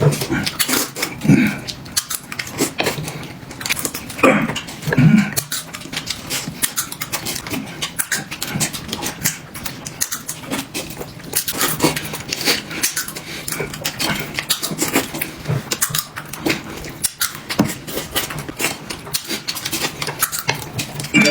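Close-up eating sounds: fast wet chewing and slurping of potato noodles, with short throaty vocal sounds about a second in and again around four to five seconds in.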